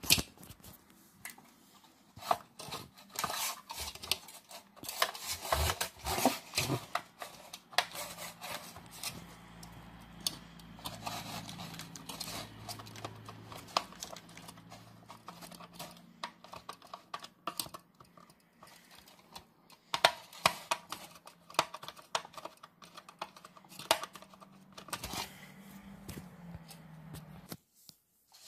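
Handling noise from hands moving a clear plastic sheet and a paper note: many irregular clicks, taps and rustles. A faint low hum comes in about eight seconds in and stops just before the end.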